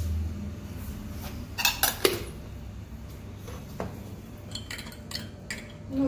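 Kitchen utensils and dishes clinking: two sharp clinks about two seconds in, then a quicker run of lighter clinks near the end.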